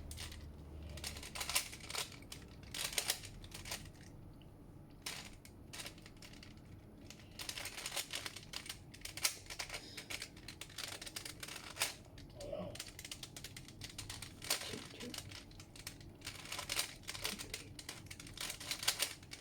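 Plastic Rubik's cube being twisted by hand: an irregular run of quick clicks and rattles as the layers turn, with a short pause a few seconds in.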